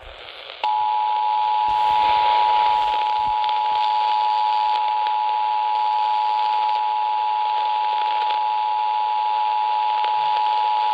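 Emergency Alert System two-tone attention signal received over AM radio: two steady tones sounding together, starting about half a second in and holding unbroken, over a constant hiss of radio static. It announces the start of an emergency alert broadcast.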